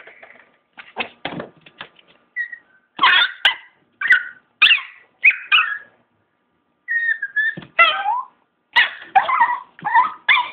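Excited chihuahua giving a rapid series of short, high-pitched cries, some sliding up and down in pitch, with a brief pause just past the middle.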